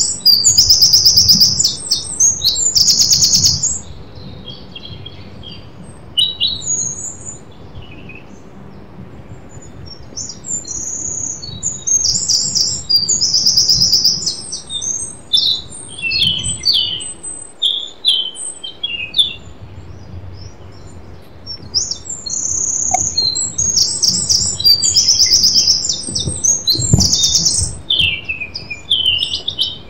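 Songbirds singing in bouts of high, rapid trills and chirps, with quieter stretches between them.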